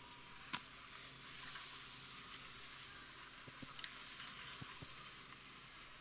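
Steady faint hiss with one sharp click about half a second in and a few fainter ticks later on.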